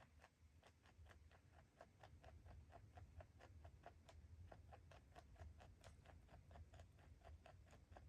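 A rabbit chewing greens: faint, quick, even clicks at about five a second.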